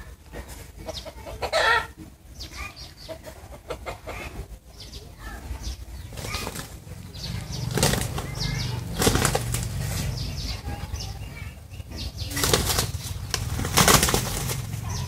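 Two roosters fighting, their wings beating in sudden bursts of flapping as they clash. The bursts are strongest about eight to nine seconds in and again near the end. A brief call sounds about two seconds in.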